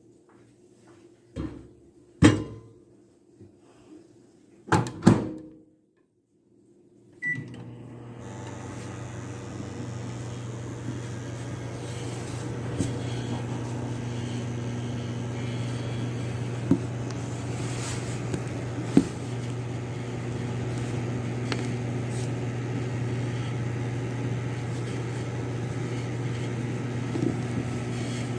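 Microwave oven being loaded and started: a few knocks of the door and handling, a short beep about seven seconds in, then the oven running with a steady hum.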